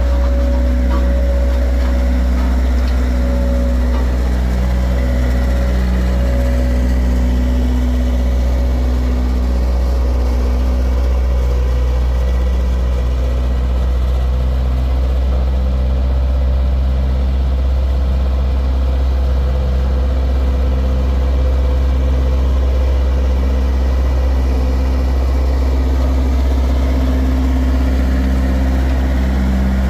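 A heavy engine running steadily at idle, with a deep hum whose upper tones swell and fade in a slow, uneven beat.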